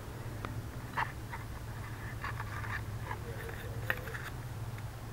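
Light taps and scrapes of a small steel knife being handled and moved against cardboard and the bench, a few scattered clicks with the sharpest near the end, over a steady low hum.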